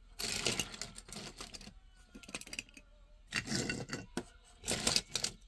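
Small die-cast toy cars being picked up, pushed about and set down on a table, giving clusters of light clicks and clatters about three times.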